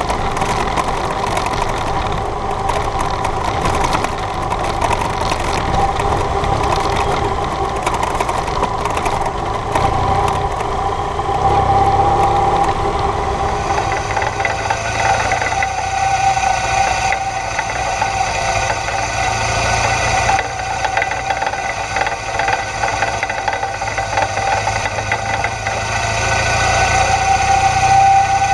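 BMW GS adventure motorcycle riding along a dirt track, picked up by a camera mounted on the bike: steady engine and drivetrain sound with wind and road noise. About halfway through the sound changes character, with more hiss higher up.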